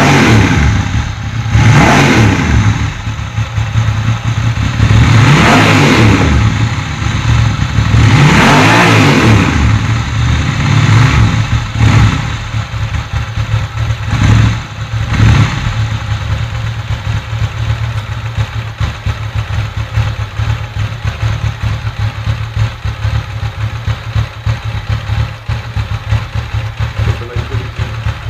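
Ducati Monster 900's air-cooled 90-degree V-twin (L-twin) engine revved repeatedly, each blip rising and falling in pitch. It then settles into a steady idle for the last dozen seconds.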